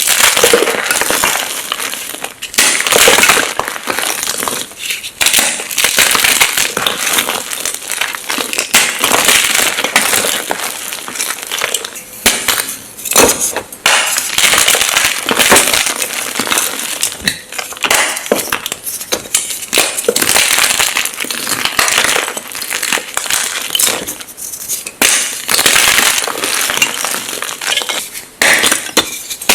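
Blocks of magnesium gym chalk being crushed and crumbled, a dense crunchy crackling full of sharp snaps that comes in waves with brief lulls.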